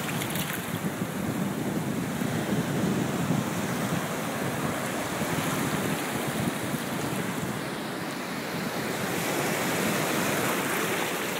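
Shallow ocean surf washing over the sand at the water's edge, a steady wash that swells near the end.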